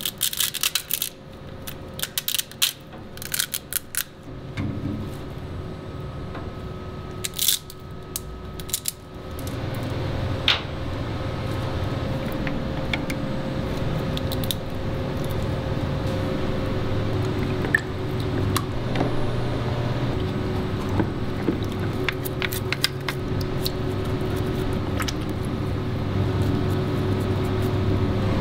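Sharp snapping and cracking as cured resin support structures are broken off a 3D-printed part by hand, many quick clicks over the first nine seconds. After that, a steady low hum takes over, with occasional small knocks.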